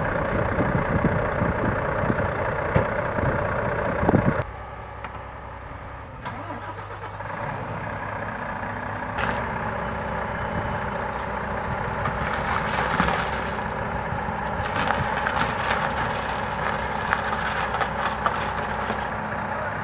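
Heavy diesel engines of a recovery truck and a wheeled excavator running steadily. The sound changes abruptly after about four seconds and again around six and nine seconds, with more rattle in the second half.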